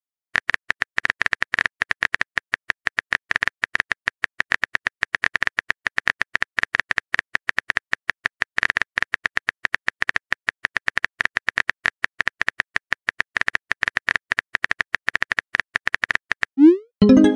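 Simulated phone-keyboard typing clicks from a texting-story app: a fast, irregular stream of short, sharp taps as a message is typed out. Near the end a rising swoosh sounds as the message is sent.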